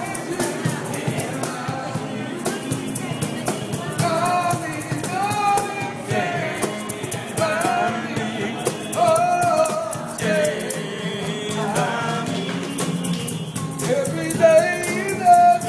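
Men singing an oldie together to a strummed acoustic guitar, with hand percussion keeping a steady beat.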